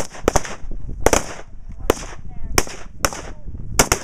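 Rapid, irregular rifle fire from several shooters on a firing line, about ten sharp shots in four seconds with the loudest about a second in, mixed with the booms of reactive explosive targets going off downrange.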